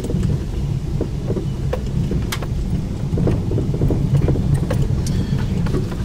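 Steady low rumble of a four-wheel drive heard inside the cabin as it drives slowly over a rough, muddy dirt track, with a few sharp knocks and rattles from the bumps.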